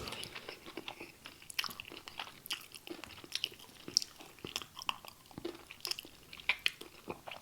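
Close-up chewing of crunchy, batter-fried popcorn prawns: a run of soft, irregular crunches and wet mouth clicks.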